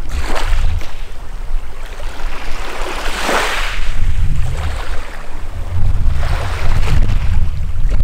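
Small waves washing up on a pebbly shore and drawing back, three washes in turn, the loudest about three seconds in. A steady low wind rumble on the microphone runs underneath.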